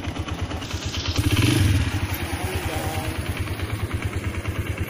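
Motorcycle engine running with a steady, rapid low putter, swelling louder briefly about a second in.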